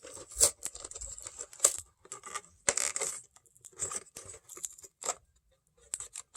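Packing tape being picked at and peeled off a toy package in short irregular rips and crackles, with a brief pause near the end.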